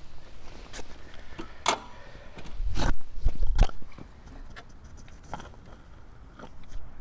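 Irregular clicks, scrapes and knocks of hands handling an e-bike, with a cluster of louder knocks and low thumps about three seconds in.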